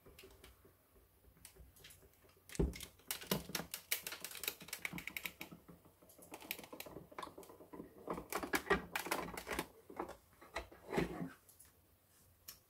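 Manual hand-cranked roller die-cutting machine being wound, its cutting plates forced through the rollers with an irregular run of clicks and knocks. The winding is tough and tight because the worn cutting plates are bent.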